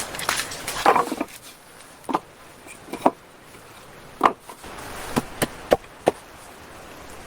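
Sharp, irregular wooden knocks: a quick cluster about a second in, then single knocks a second or so apart, coming faster near the end.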